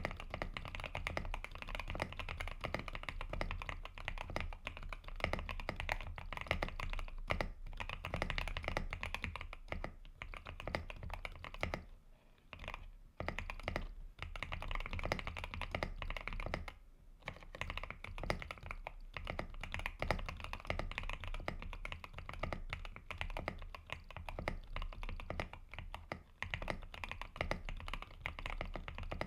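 Fast, continuous typing on a mechanical keyboard with Gateron Oil King linear switches in a Zuoyu GMK81 board: dense key clacks that pause briefly twice.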